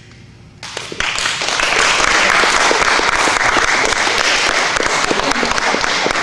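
Audience applause that breaks out about a second in and keeps up as steady, dense clapping.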